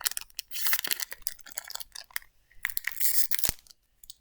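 Japanese Pokémon card booster pack's foil wrapper being torn open and crinkled, in two bursts of tearing about a second each, then a single sharp tap.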